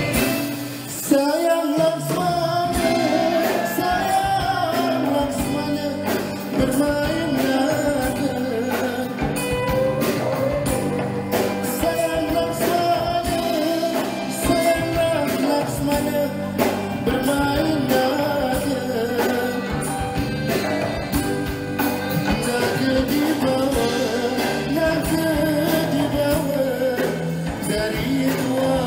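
Male singer with a live band of drum kit, keyboards and guitar performing a Malay pop-traditional song; the voice comes in about two seconds in.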